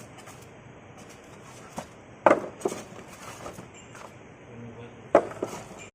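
Electric nutmeg cracking machine running, with sharp cracks and knocks as nutmegs are split inside it: a small one just under two seconds in, a loud crack with quick knocks after it a little past two seconds, and another loud crack followed by a knock about five seconds in.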